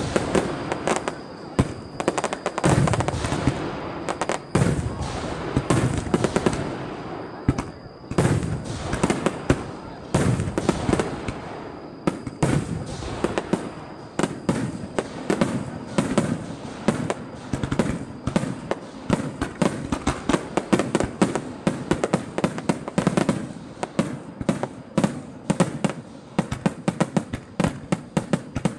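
Fireworks going off in rapid succession: dense crackling and popping, with many louder bangs from bursting shells.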